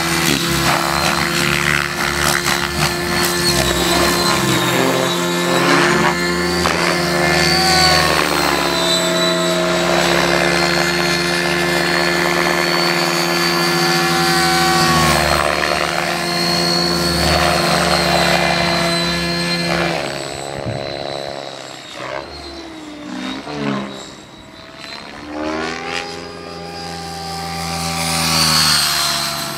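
Align T-Rex 700 radio-controlled helicopter flying aerobatics, its rotor and drive giving a steady whine whose pitch bends up and down through the manoeuvres. It grows quieter for several seconds past the middle, then comes back loud near the end.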